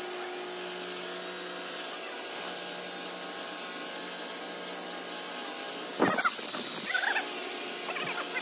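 Corded angle grinder with an abrasive disc running steadily against the aluminium barrel of a multi-piece wheel, scrubbing off the old bead sealant. About six seconds in come a few short, louder sounds that rise and fall in pitch.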